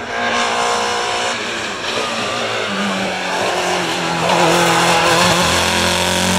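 BMW E36 hillclimb race car engine running hard at high revs through the bends, its pitch rising and dipping as the driver accelerates and shifts.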